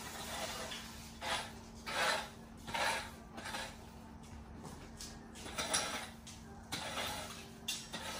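Hand yard-clearing work: a series of short scraping and rustling strokes, several in quick succession and then a few spaced out.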